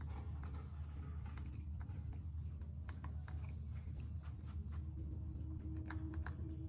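Baby macaque chewing a piece of sweet potato: a run of small, quick mouth clicks and smacks over a steady low hum.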